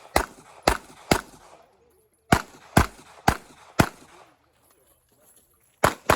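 Glock 26 9mm pistol firing quick shots with short echoes: three about half a second apart, a pause of about a second, four more at the same pace, then another shot near the end.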